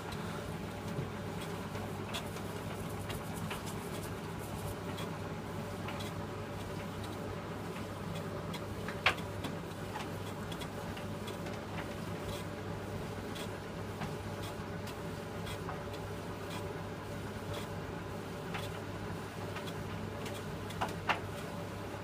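Philips D180 tumble dryer running: a steady motor hum as the drum turns the laundry, with light scattered ticks and one sharper click about nine seconds in.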